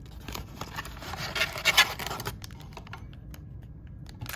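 Trading-card blaster box packaging being handled and opened: cardboard and wrappers scraping and rustling, with small clicks. It is busiest and loudest a little over a second in, then thins to lighter scratches.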